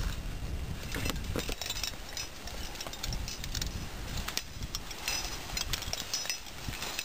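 Scattered light clicks and clinks of climbing gear (carabiners and hardware) during a lead climb, over a low rumble of wind on the microphone.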